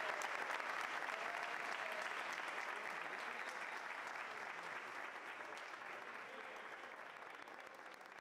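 Applause, a steady patter of many hands clapping, fading out gradually.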